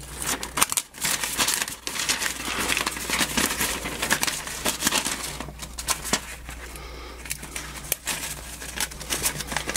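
A sheet of paper crinkling and rustling in irregular bursts as it is pushed, bent and tucked in between a circuit board and the deck chassis as insulation.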